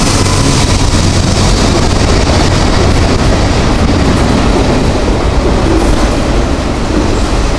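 CSX freight train passing close at speed: the diesel locomotive's engine hum goes by in the first second, then a string of autorack cars rolls past with loud, steady wheel-on-rail noise and some clickety-clack over the rail joints.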